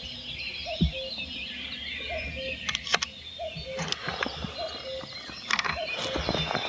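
Many birds singing, with a short call repeating about every two-thirds of a second, and a few sharp clicks and taps from a carp rod and reel being handled, about three seconds in and again near the end.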